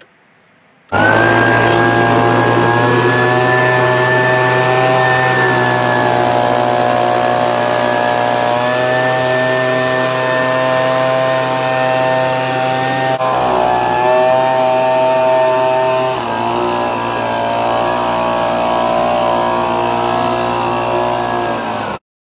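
ECHO petrol leaf blower with a gutter-cleaning extension tube, its two-stroke engine running at high throttle with a fan whine on top while it blows debris out of the roof gutter. The sound starts suddenly about a second in, stays steady with slight shifts in pitch, and cuts off abruptly near the end.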